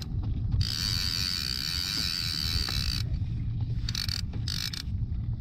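Fishing reel's drag buzzing as line is pulled off by hand to test the drag tension: one long pull of about two and a half seconds, then two short ones near the end. A low rumble runs underneath.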